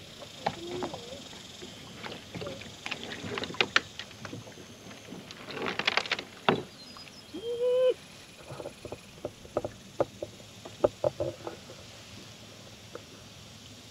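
Hollow plastic hull of an empty Nucanoe Frontier 12 kayak knocking and clicking under a person's feet as he stands on its edge and rocks it, with water sloshing against the hull about six seconds in and a short rising squeak soon after.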